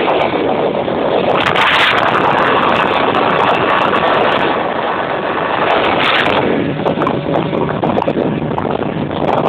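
Racing speedboat's engine running steadily at speed, with the rush of wind and water over the microphone. There are brief louder surges about a second and a half in and again around six seconds.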